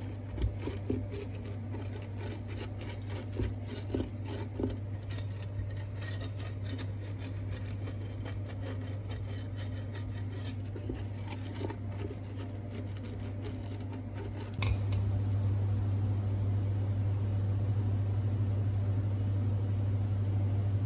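Silicone pastry brush scraping and tapping across the nonstick grid plates of an electric waffle maker, over a steady low electrical hum. About 15 seconds in there is a click, the brushing stops and the hum gets louder.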